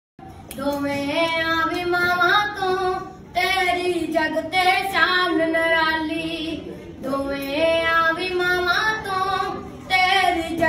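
A boy singing a Punjabi vaar (heroic ballad) solo, in long held, wavering notes, phrased in lines of about three to four seconds with short breaths between.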